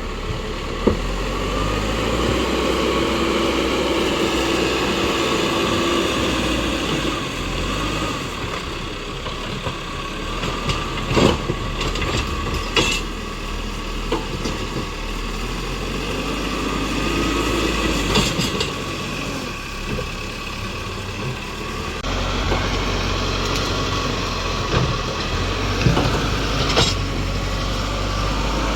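Tractor engine running steadily at road work, with a rattling clatter and several sharp knocks.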